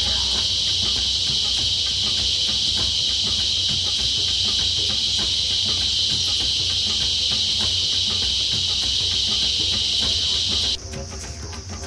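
Rainforest insects droning in a loud, steady, high-pitched chorus that cuts off suddenly near the end, leaving a fainter, higher buzz.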